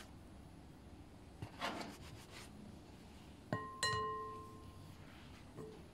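A plastic dough scraper cuts through soft dough on a metal baking tray with a brief faint scrape. About three and a half seconds in come two quick knocks on the tray, each leaving a metallic ring that fades over about a second.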